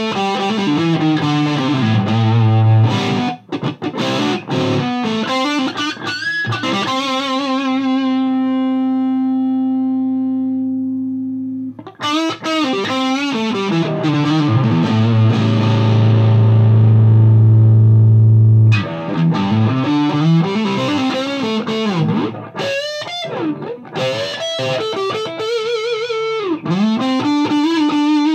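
Distorted electric guitar, a Gibson Les Paul played through a Mesa Boogie Dual Rectifier tube amp in its high-gain modern mode into a Marshall 4x12 cabinet. It plays heavy riffs, with two chords left to ring out, the first about a third of the way in and a louder, lower one past the middle, and bent, wavering notes near the end.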